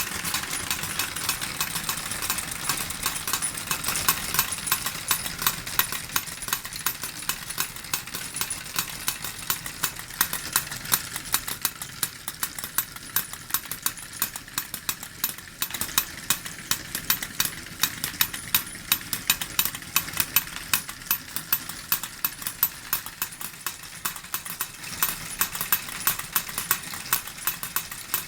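Wilesco D21 toy steam engine running, driving two small model forge hammers that clatter metal on metal in a fast, regular rhythm over a steam hiss. The louder hammer blows come about twice a second.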